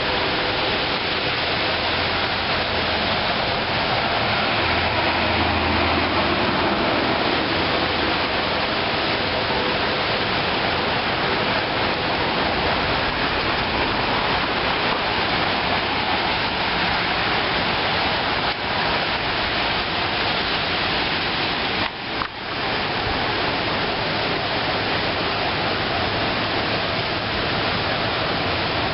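Heavy rain falling steadily: a dense, even hiss, with two brief dips in level.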